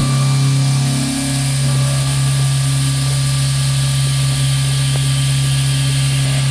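CNC machining center milling a block of 316 stainless steel: a loud, steady low hum from the cutting with a dense hiss over it, starting suddenly at the beginning.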